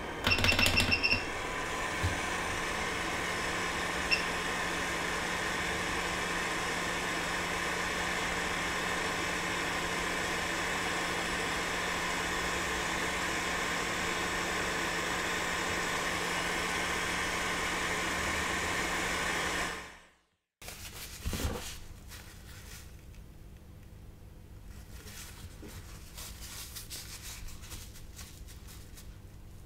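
Hot air rework station blowing steadily over the flux-covered L1 bridge pads of a Socket A CPU, reflowing the solder. A high beep sounds near the start. The blowing cuts off about twenty seconds in, leaving faint room noise.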